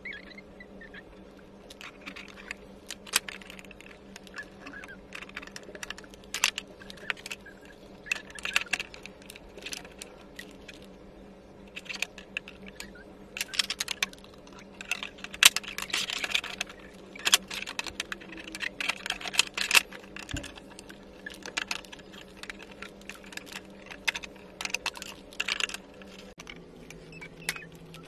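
Irregular light clicks, taps and knocks as the panels and door of a toy play kitchen are handled and fitted together during assembly, with one duller knock about twenty seconds in. A steady low hum sits underneath.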